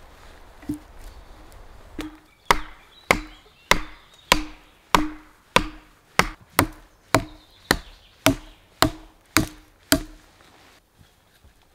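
Hatchet striking the top of an upright wooden stake, driving it into the ground: about fifteen steady blows, roughly two a second, each a sharp knock with a short woody ring.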